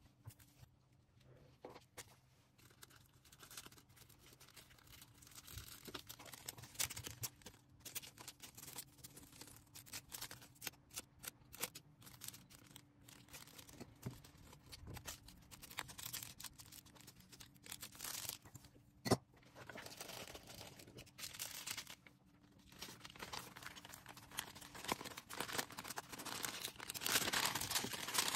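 Order packing by hand: packaging material rustling and being handled, with scattered small clicks and taps. One sharper click comes about two-thirds of the way through, and the rustling grows denser and louder near the end.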